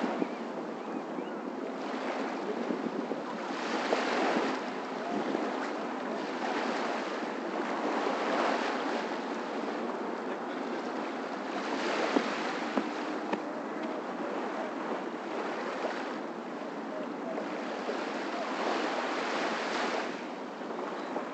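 Small waves washing onto a sandy beach, the surf swelling about every four seconds.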